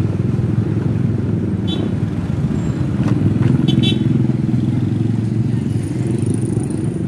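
A small motorcycle engine running steadily at low speed close to the microphone, an even low engine note with fast firing pulses. Two very short high beeps come about two and four seconds in.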